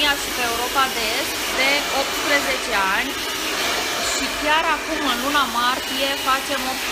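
Handheld hair dryer running steadily, blowing a section of long hair dry.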